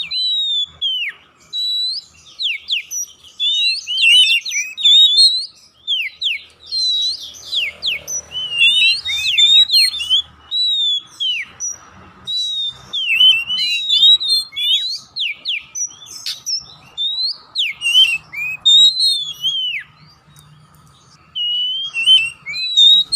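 Oriental magpie-robin of the black-bellied 'kacer poci' form singing a varied song of loud whistled notes that slide up and down, mixed with short chirps, in phrases a second or two apart.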